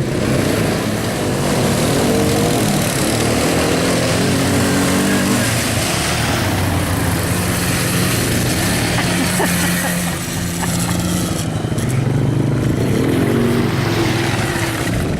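ATV engines running under throttle, their pitch rising and falling as the riders speed up and ease off, over a steady rushing noise.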